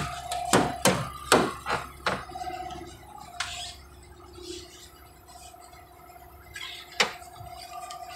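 Metal tools clinking and knocking against metal truck parts: a quick run of sharp clanks in the first two seconds, then one more, and a louder one about seven seconds in, over a faint steady hum.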